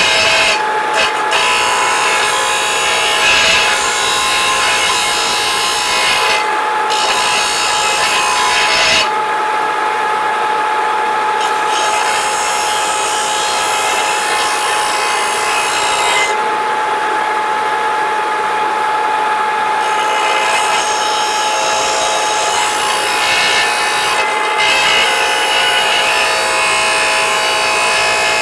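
Steel rails of a laminated chainsaw bar being ground flat against a running power tool: a harsh rasping over the motor's steady whine, with the grinding easing off several times as the bar is lifted and repositioned while the motor keeps running. The rails are being dressed level so that both edges of the bar are even.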